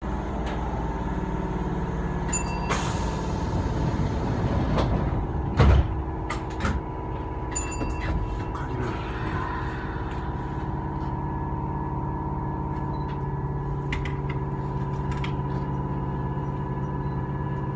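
Steady hum with several held tones from a stopped Kintetsu electric train, heard from inside at the front of the car. A single loud thump comes about six seconds in.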